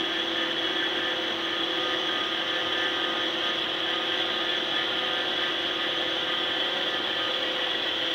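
Russell Liquid Solid Separator running: a steady mechanical hum with a constant high-pitched whine.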